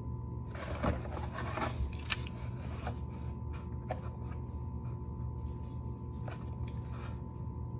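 Cardboard toy box being handled and turned over: rustling and scraping of the packaging for a second or two near the start, then a few light taps and clicks.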